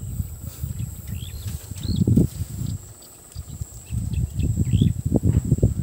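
Irregular low rumble of wind buffeting the microphone, dropping away briefly about three seconds in, with a few short bird chirps.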